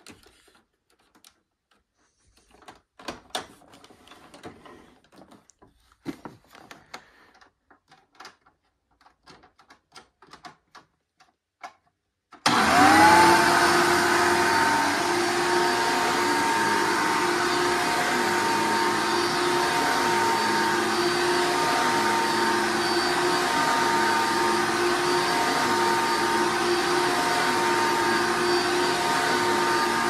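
A 2001 Hoover Runabout upright vacuum is handled with scattered clicks and knocks. About twelve seconds in its motor switches on with a short rising whine, then runs steadily at full speed.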